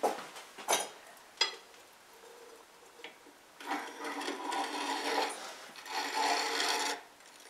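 A few knocks, then a metal trivet carrying a ceramic pie pan scraping across the brick floor of a wood-fired bake oven for about three seconds as it is pushed to the rear with a long-handled iron tool.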